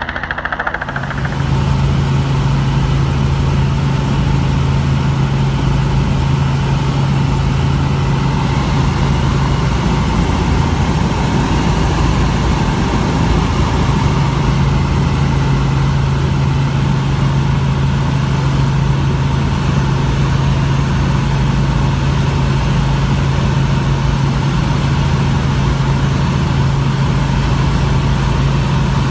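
Helicopter in flight heard from inside the cabin: a steady, loud drone of engine and rotor that sets in about a second in and holds even.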